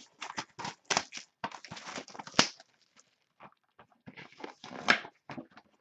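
A 2011 Panini Playbook Football card box being opened and its packs handled: irregular crackling, rustling and scraping of cardboard and wrapper. There are two longer rustling stretches, about a second and a half in and again past four seconds.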